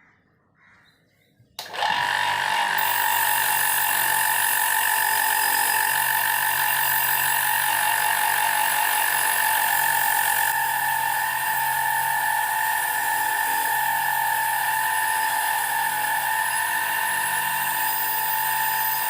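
An electric power tool starts up about two seconds in and runs steadily with a high whine and a hiss.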